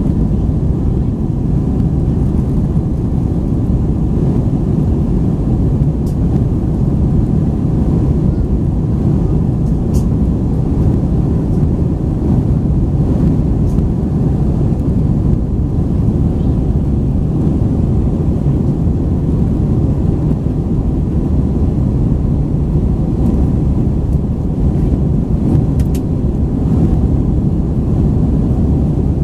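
Steady low rumble inside the cabin of an Airbus A321-231 in flight: airflow over the fuselage and the drone of its IAE V2500 turbofans. A couple of faint clicks from the cabin.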